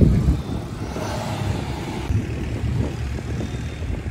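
Cars driving slowly past, their engines and exhausts running low, with a pitched engine tone swelling for a moment about a second in. A brief loud thump comes right at the start.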